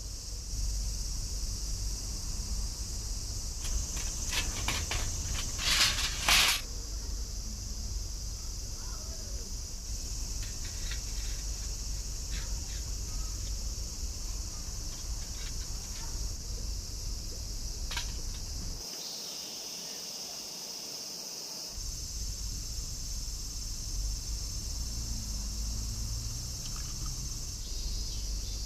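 A steady high-pitched chorus of summer cicadas, with a few sharp clicks and a short crackling burst about six seconds in.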